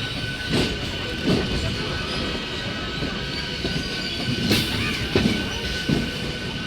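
Train running over the tracks: a steady rumble with a thin, high squeal held throughout, and irregular clanks about every second or so.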